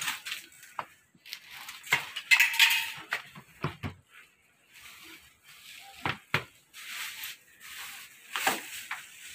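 Scattered knocks, clicks and clinks with bits of rustling, as goods are handled and rummaged through.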